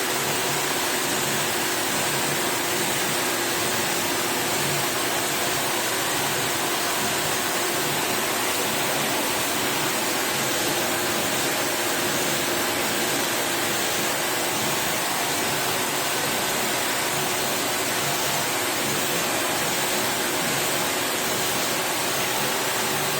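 Water spray rinsing the dirty parts of a stand air conditioner during cleaning, a steady hiss of running, spraying water.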